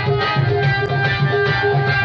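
Instrumental music: plucked strings over a steady, quick drum beat.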